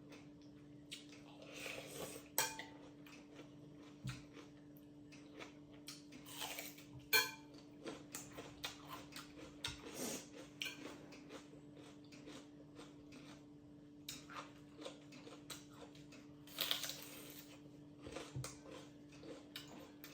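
Utensils clinking and scraping against a bowl while noodles are eaten, with many scattered small clicks and three louder short bursts of noise.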